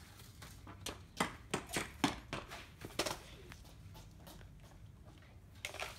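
Nerf blaster being handled and reloaded with darts: a series of sharp clicks and knocks, about eight in quick succession between one and three seconds in, then one more near the end.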